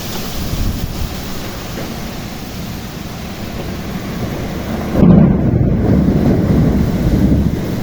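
Monsoon thunderstorm: steady rain and wind, then about five seconds in a sudden loud roll of thunder that rumbles low and carries on to the end.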